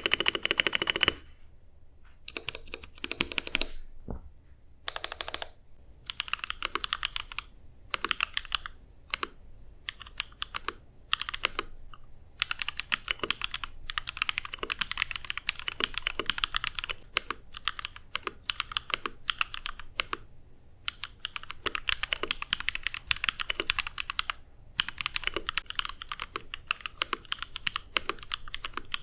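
Custom 60% mechanical keyboard with lubed Holy Panda tactile switches on a brass plate, typed on in fast runs of keystrokes with short pauses between them.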